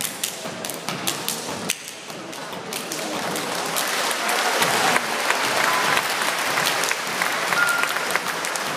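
Audience applauding and cheering, swelling from about three seconds in. Over it come sharp claps and stomps from the dancers' stepping routine.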